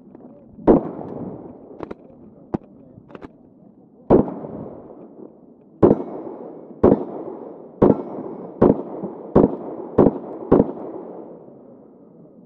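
Stock Glock 19 MOS Gen 4 9mm pistol firing: a single loud shot about a second in, another around four seconds, then a string of seven shots that quickens from about one a second to nearly two a second. Fainter sharp cracks come between the first two shots.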